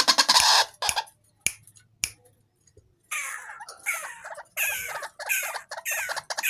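White-breasted waterhen calling: a fast rattling run of notes that stops under a second in, a few single clicks, then from about three seconds in a string of repeated calls, each falling in pitch, about two a second.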